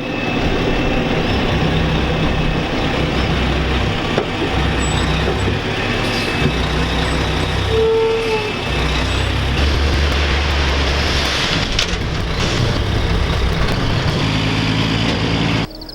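A large engine running hard, its low hum shifting abruptly several times, with a brief tone about halfway through; the noise drops off suddenly near the end.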